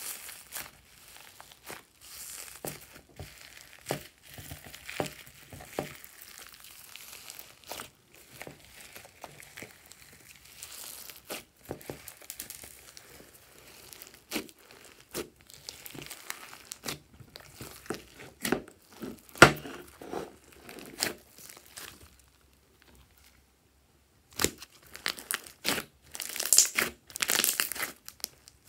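Hands squeezing and pressing glossy slime mixed with clay and foam beads, giving a stream of short sharp clicks and pops. There is a brief silent break about three-quarters of the way through, then a denser, louder run of clicks near the end.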